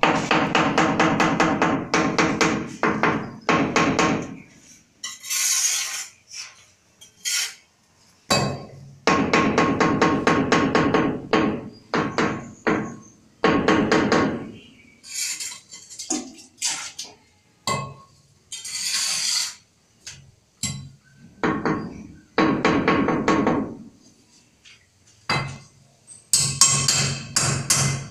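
Quick, light hammer taps on a ceramic wall tile, bedding it into the mortar, in bursts of a few seconds each with a slight ringing. Two brief scraping sounds fall between the bursts.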